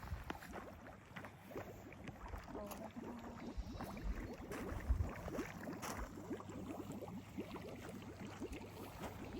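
Water lapping and trickling, with a dense run of small quick splashes.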